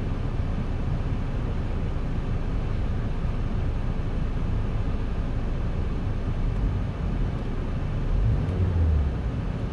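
Mazda CX-5's engine idling at about 800 to 880 rpm while parked, heard from inside the cabin as a steady low running sound.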